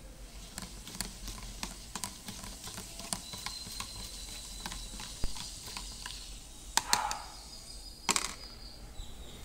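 A plastic stirrer tapping and scraping against the sides of a thin plastic cup as a liquid is stirred: a string of light, irregular clicks, with two louder knocks near the end.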